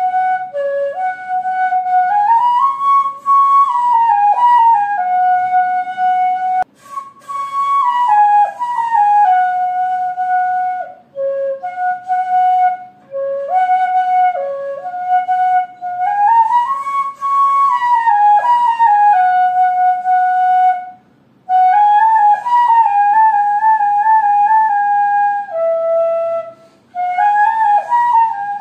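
Background music: a flute playing a slow melody one note at a time, in phrases broken by short pauses.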